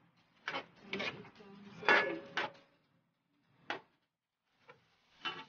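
Metal spatula knocking and scraping against an aluminium wok while stirring, in a series of irregular clanks with short quiet gaps, loudest about two seconds in.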